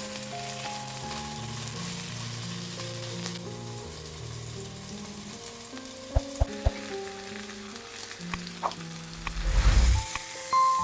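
Food sizzling in a frying pan, with a few sharp clicks about six seconds in and a louder low thump near the end.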